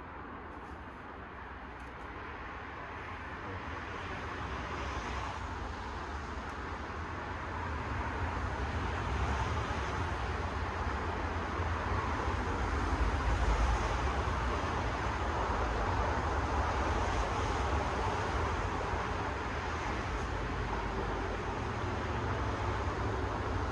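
Steady outdoor background noise, a low rumble with a hiss, swelling gradually louder over the first ten seconds or so and then holding.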